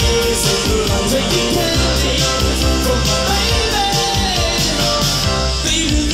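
Live pop-rock band playing an up-tempo song with a steady beat, a male lead voice singing over it.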